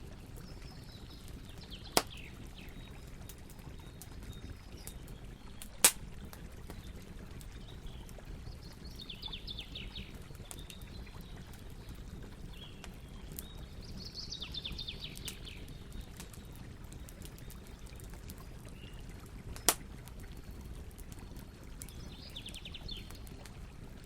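Campfire crackling over a steady low rumble, with three sharp loud pops about two, six and twenty seconds in. A bird calls in short descending trills four times in the background.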